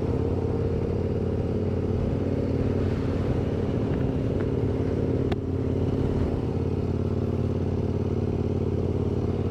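KTM 1090 Adventure R's V-twin engine running steadily at low road speed, heard from on the bike. There is a short click and a brief dip in the engine note a little past halfway.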